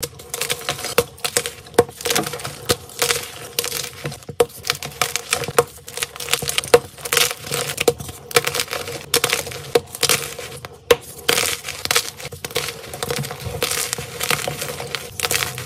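Blocks of gym chalk snapped and crushed in bare hands: many sharp cracks as the blocks break, with gritty crunching and crumbling as the pieces are squeezed to powder.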